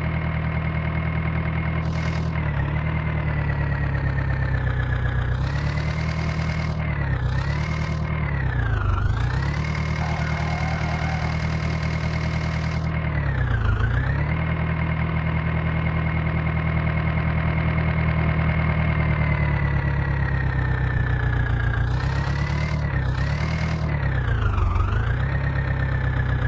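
Heavy diesel engine of a tractor or backhoe running steadily. Its pitch dips briefly and comes back up about half a dozen times.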